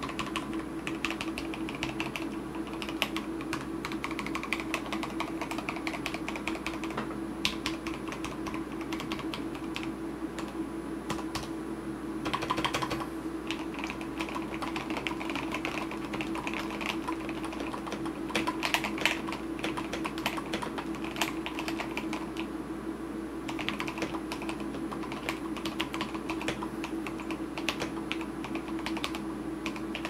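Fast, continuous typing on an LCK75 custom mechanical keyboard with lubed and filmed C3 Kiwi tactile switches, lubed stabilizers and Drop MT3 keycaps: a dense, uneven stream of keystrokes with a couple of quicker flurries, about a third and two thirds of the way through.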